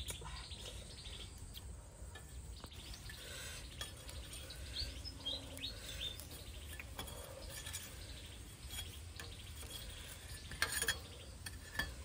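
Metal spatula scraping and clinking against a wire grill rack as rolls of cow skin are turned over charcoal, with a sharper clatter near the end. Birds chirp now and then.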